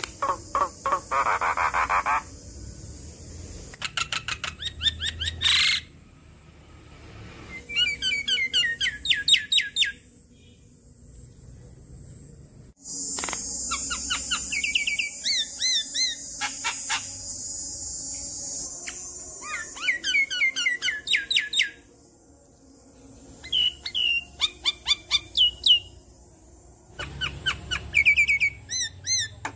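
Javan myna giving its chattering song: about seven bursts of rapid clicks and rattles mixed with short squeaky whistled notes, with short pauses between them. A steady high hiss runs for several seconds through the middle.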